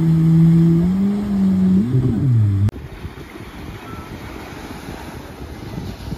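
A loud, steady pitched hum that rises slightly, then wobbles down in pitch and cuts off sharply. It is followed by wind buffeting the microphone over surf breaking on the beach.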